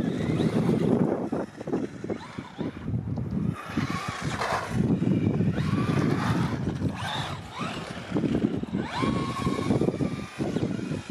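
Traxxas Slash 4x4 VXL RC truck driving, its brushless motor whine rising and falling as it speeds up and slows, over a steady rush of tyre and ground noise.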